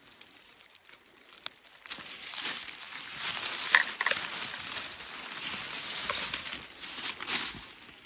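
Dry, shredded wood and stringy bark being torn and snapped off a dead trunk by a gloved hand: crackling and rustling with sharp snaps, quiet at first and busier from about two seconds in.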